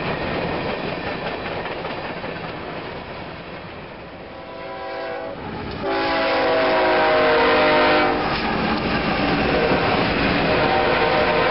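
Freight train rolling past close by, with the wheels and cars of hopper cars making a rushing clatter. About halfway through, mid-train CSX diesel locomotives arrive alongside and the sound suddenly gets louder, with a steady multi-note tone from their running engines for a couple of seconds before it eases back under the wheel noise of the following cars.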